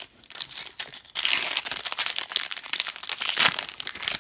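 A foil hockey card pack wrapper being crinkled and opened by hand: a dense, crackly rustle that grows loud about a second in.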